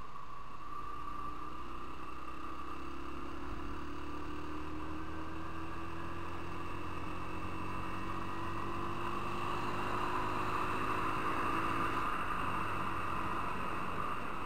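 Motorcycle engine running as the bike gathers speed, its pitch rising slowly and steadily. Wind and road noise grow louder about two-thirds of the way through.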